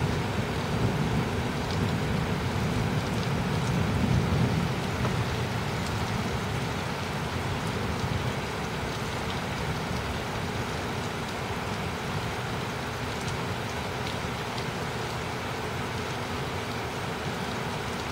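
Steady rain falling, with a low rumble of distant thunder in the first few seconds that swells about four seconds in and then fades away.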